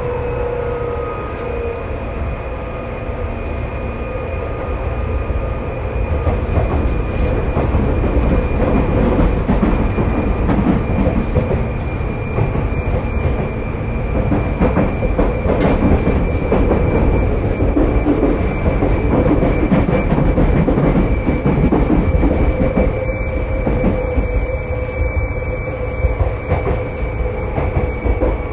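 Seibu 2000 series field-chopper electric train running at speed, heard from inside a motor car: steady wheel-and-rail rumble with repeated rail-joint clacks and a steady high motor whine that falls slightly in pitch.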